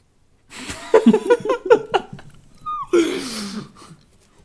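A person's voice making nonverbal sounds: a run of quick laughter-like syllables, a brief high squeak falling in pitch about two and a half seconds in, then a breathy groan sliding down in pitch.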